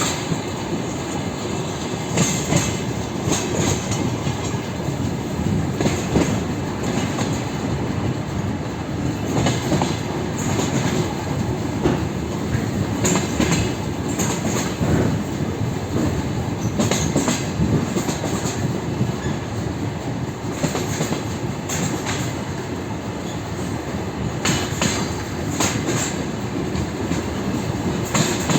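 Wheels of a DR1A diesel multiple unit clattering over rail joints as it runs along the line, heard from aboard. The clacks come every few seconds, often in quick pairs, over a steady rumble of running gear.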